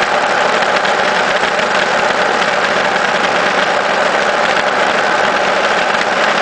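Steady engine and road noise from a vehicle cruising at an even speed, with no changes in pitch or level.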